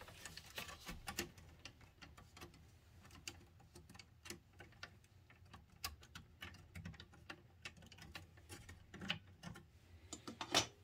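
Scattered light plastic clicks and ticks as the Kenwood DP-860's front faceplate is unclipped from the chassis, with a louder click near the end.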